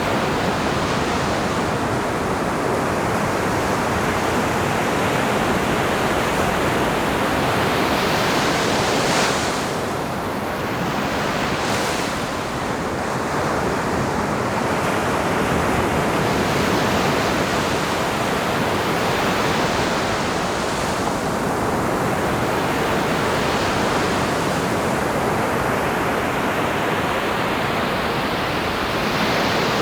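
Ocean surf washing onto a beach: a continuous rushing wash of breaking waves, with two brief louder swells about a third of the way in.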